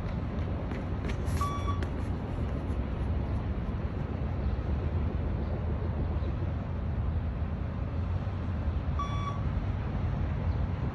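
Two short electronic beeps from a beep-test (shuttle run) recording, one about 1.5 s in and one about 9 s in, each signalling the end of a shuttle. They sound over a steady low rumble.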